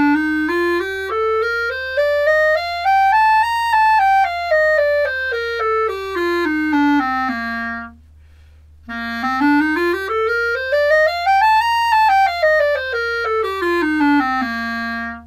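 Clarinet playing two scales, each stepping up about two octaves and back down, with a short pause between them. The leather ligature is clamped down as tight as it will go, which the teacher says audibly reduces the reed's resonance.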